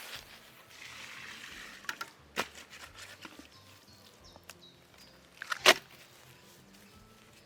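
A few scattered sharp knocks, the loudest one about five and a half seconds in, with a faint hiss in the first couple of seconds.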